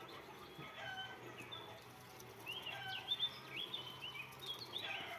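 Ducks and a hen calling while they feed: a string of short, high peeps, many rising quickly in pitch, thickest in the second half, with a couple of sharp taps about three seconds in.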